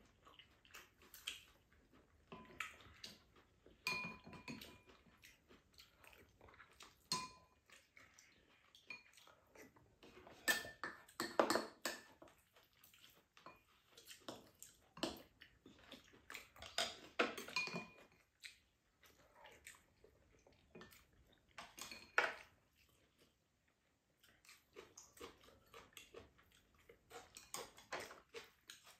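People eating at a table: chewing, with spoons and chopsticks clicking and scraping against bowls and a frying pan in irregular taps, a few of them short ringing clinks.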